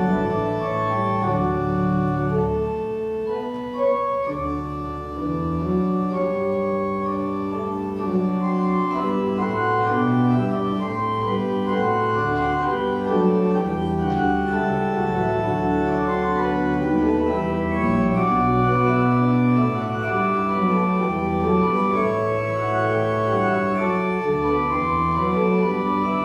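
Organ music: sustained chords that change every second or two over a moving bass line.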